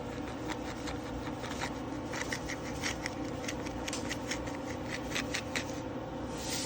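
A quick run of light scratches and clicks, several a second, from a spoon working sugar into a cup of coffee; they stop shortly before the end, over a steady low hum.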